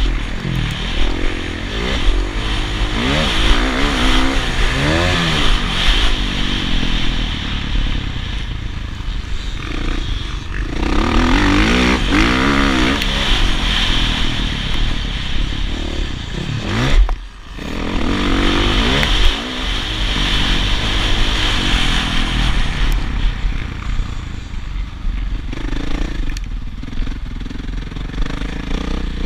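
Motocross dirt bike engine revving up and falling back again and again as the rider works the throttle and gears around the track, with a steady rush of wind noise. A little past the middle the sound briefly drops away for about half a second before the engine comes back on.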